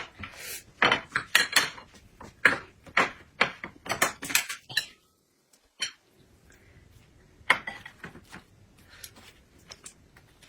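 Utensils clinking and knocking against dishes at a meal: a quick run of sharp clinks for the first few seconds, a sudden second of dead silence, then a few scattered, quieter clinks.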